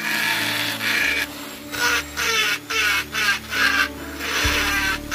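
Electric mini grinder's flexible-shaft handpiece with a wood-carving burr cutting into a wooden relief panel: a rasping grind that comes in short repeated strokes.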